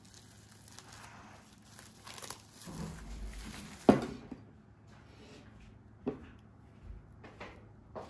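Plastic cling film crinkling as it is peeled off a silicone muffin mould, then a single sharp knock near the middle.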